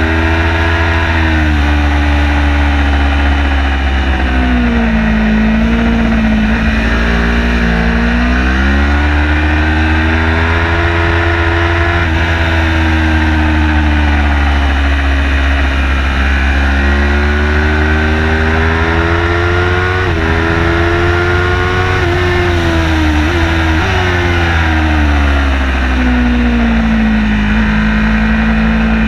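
Car engine heard from onboard during a fast lap, its pitch climbing under acceleration and falling on lifts and gear changes, over a steady low rumble of wind and road noise.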